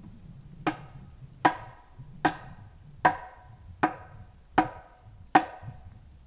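A hand tool striking wood seven times in a steady rhythm, about one blow every three quarters of a second, each blow a sharp knock with a brief ringing tone.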